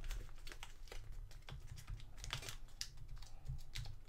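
A plastic mail envelope being handled and worked open, giving a string of small, irregular clicks and crinkles.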